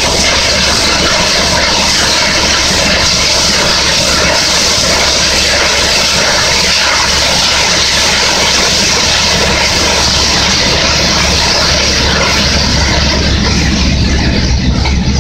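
Horizontal directional drilling rig boring with a 650 mm hole opener, a loud steady roar with a high rush of air and dust blowing out of the bore around the drill pipe. Near the end the rushing thins out, leaving a lower drone.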